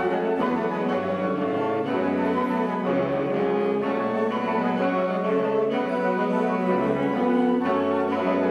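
A small woodwind ensemble of flutes and saxophones playing a piece in held chords that change about every second.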